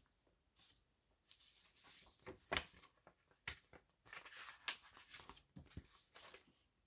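Faint rustling and light taps of a picture book's paper pages being handled and turned.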